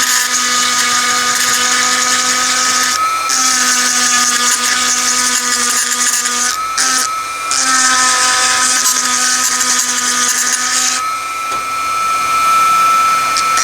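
Dremel rotary tool with a grinding stone running at high speed with a steady high whine, grinding rusty steel in passes, with the grinding hiss breaking off briefly about three seconds in, around seven seconds and around eleven seconds as the stone is lifted off the work.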